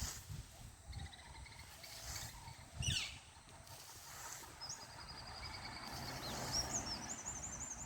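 Songbirds calling: a short trill, then a quick falling run of notes about three seconds in, a long high trill from about five seconds, and a run of rapid high chirps near the end, over low background rumble.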